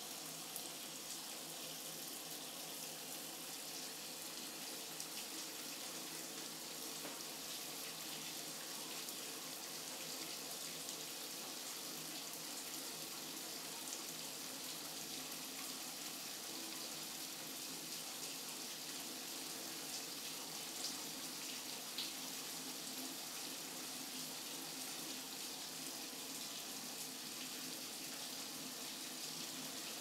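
Steady hiss of running, trickling water, with a few faint ticks.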